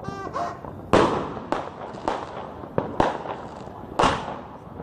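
Fireworks going off: a run of sharp bangs about every half second to a second, each trailing off in an echoing rumble.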